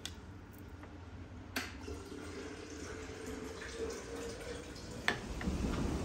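Liquid pouring and dripping from a pot into a glass coffee cup, with a clink of the pot at the start and another about a second and a half in. About five seconds in, steady rain noise takes over.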